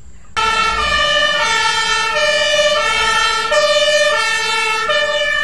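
German fire engine's two-tone siren (Martinshorn), starting about half a second in and switching back and forth between a lower and a higher tone, each held for well under a second.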